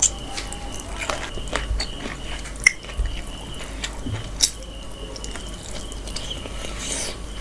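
Wet chewing and mouth clicks of someone eating mutton curry with rice, with a few sharper clicks, the loudest a little under three seconds in and about four and a half seconds in.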